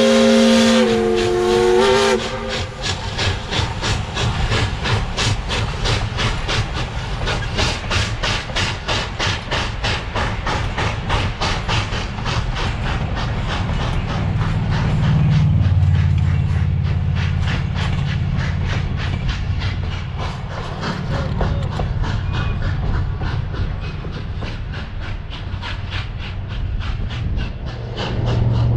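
Steam locomotive No. 40, a Baldwin 4-6-0, sounds its steam whistle for about the first two seconds, then chuffs in a steady rhythm as the train passes, with the clatter of the passenger cars' wheels.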